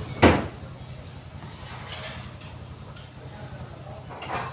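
Two slurps of beef broth sipped from a small cup: a short, loud one just after the start and a softer one near the end.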